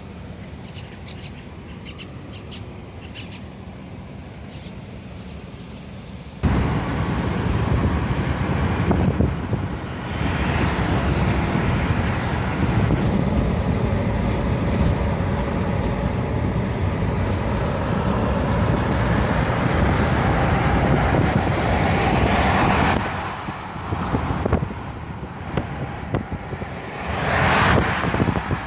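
Road and wind noise of a car driving, quiet and steady at first, then suddenly much louder about six seconds in, with low rumbling wind buffeting the microphone. The noise swells twice near the end.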